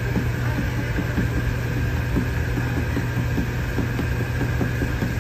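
Steady hum of an electric stall fan, with a faint high tone, under irregular light clicks and knocks.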